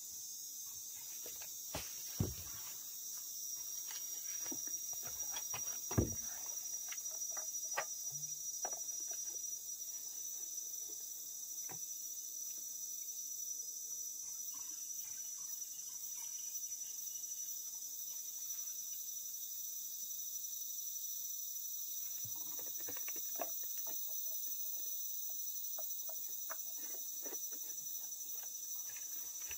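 Steady high-pitched insect chorus, with a few sharp knocks about two and six seconds in.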